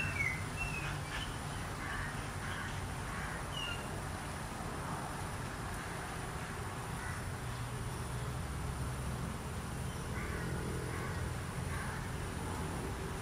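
Outdoor field ambience: a steady low rumble and hiss, with a few short bird calls in the first few seconds and again around ten seconds in.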